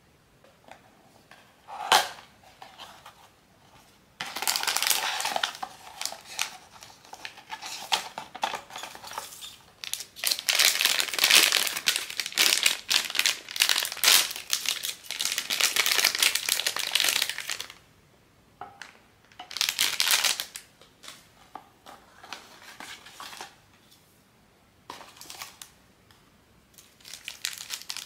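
Blind-box toy packaging being handled and opened by hand: one sharp snap about two seconds in, then long stretches of loud crinkling and crackling with pauses between them.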